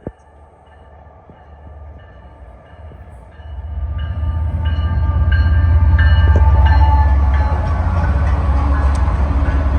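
BNSF autorack freight train rolling in, its locomotives' low rumble growing and then getting much louder about three and a half seconds in as the train arrives. Thin high tones and a few sharp clicks sound above the rumble.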